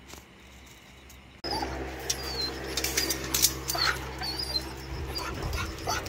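Dogs in a wire kennel whining in short, high whimpers, repeated every second or so over a steady low hum.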